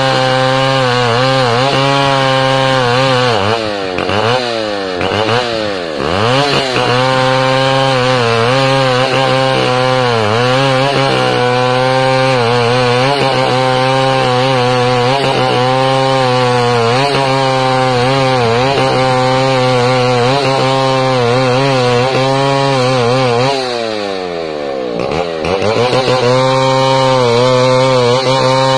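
Two-stroke chainsaw ripping a squared timber lengthwise, running at high revs with its pitch wavering under load. Twice the revs sag sharply and then climb back: a few seconds in, and again about five seconds before the end.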